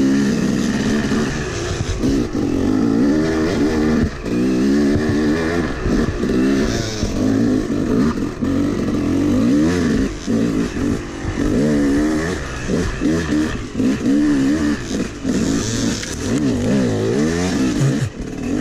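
Yamaha YZ250 two-stroke dirt bike engine heard from on board, revving up and down again and again as the rider works the throttle on a tight trail, with brief drops where he rolls off.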